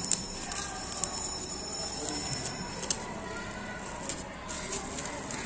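Bubble wrap crinkling and crackling with sharp clicks as it is handled and pulled off a plastic mini ceiling fan housing. A steady high-pitched whine sits underneath and fades about three seconds in.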